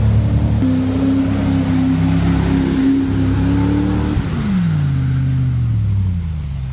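Land Rover Discovery engine revving hard and steady as the truck churns through deep mud and water; about four seconds in the revs fall away.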